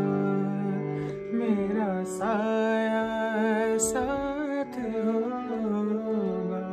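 A solo male voice singing a slow Hindi film melody, with long wavering, ornamented notes over an accompaniment of steady held notes.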